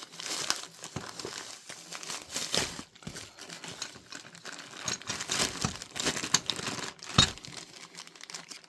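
Packaging rustling and crinkling as it is handled, in irregular bursts, with a sharp knock about seven seconds in.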